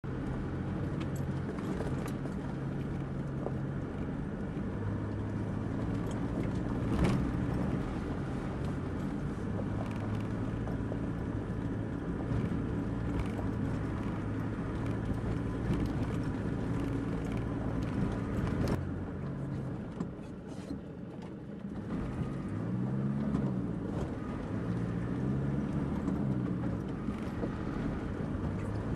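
Land Rover Defender engine running at low speed on a rough dirt track, its pitch shifting as it works, with occasional sharp knocks as the vehicle goes over bumps. Near the end the engine revs rise and fall twice.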